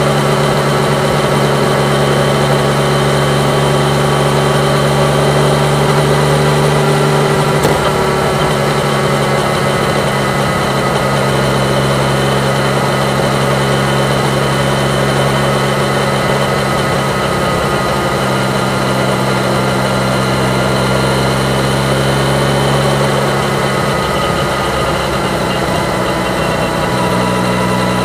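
Yamaha MT-09's three-cylinder engine running at fairly steady revs while riding, under a steady rush of wind noise. The engine note shifts a little about eight seconds in and again near the end.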